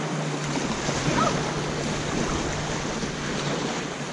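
Steady wind noise on the microphone over small lake waves washing onto the shore.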